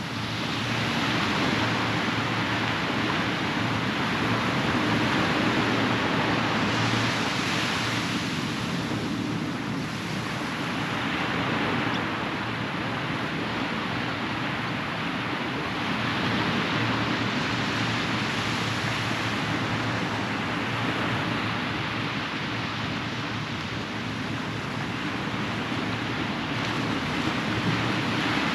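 Ocean surf washing onto a beach: a steady rush of breaking waves that swells and eases every several seconds.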